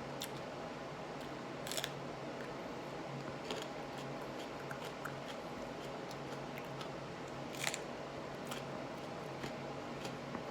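Sparse wet clicks and smacks of a mouth chewing raw serrano peppers, two louder ones about two seconds in and near eight seconds, over a steady electrical hum.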